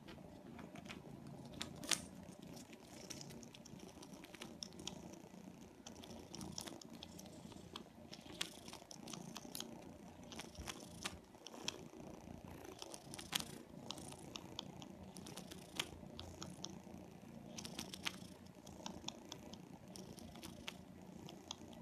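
A cat purring steadily, with quick, irregular wet clicks and smacks of kittens feeding.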